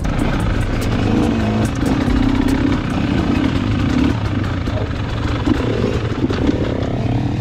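Off-road dirt bike engines running at trail speed, the pitch wavering up and down with the throttle and rising near the end.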